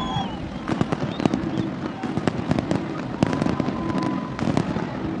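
Fireworks display going off in rapid, irregular bangs and crackles, many in quick succession, over the murmur of a crowd.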